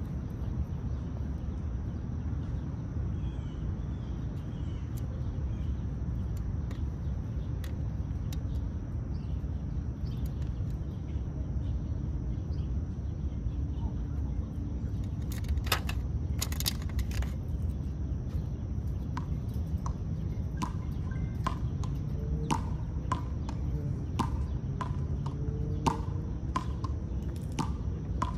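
Squirrel gnawing open a peanut shell: a run of short, sharp crunching clicks, one or two a second, starting about halfway through, over a steady low outdoor rumble.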